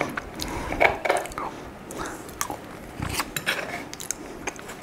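Close-miked eating sounds: biting into and chewing a crepe, with a few short light clicks.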